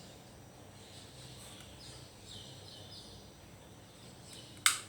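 Faint birds chirping in short, repeated falling notes. A single sharp click near the end is the loudest sound.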